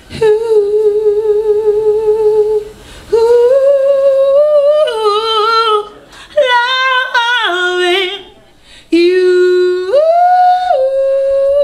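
A woman singing unaccompanied, with no clear words: a long held note with vibrato, then rising sustained notes and quick melodic runs, in several phrases broken by short pauses.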